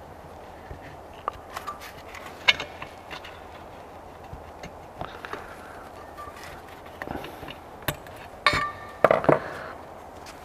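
Small clicks and scrapes of a screwdriver tip working at a tiny circlip to free the plastic governor gear on a Honda GX160 crankcase cover. Near the end come a few louder metallic clinks with brief ringing.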